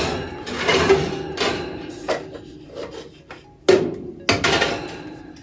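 Metal baking pans clanking against each other and against the oven's wire rack as they are slid into a countertop electric oven. Several sharp clanks, each ringing briefly, with the loudest at the start and two more a little past halfway.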